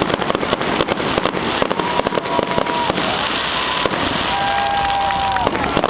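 Aerial fireworks display: a dense, continuous run of crackling and popping from bursting shells and comets, with bangs at irregular, rapid intervals.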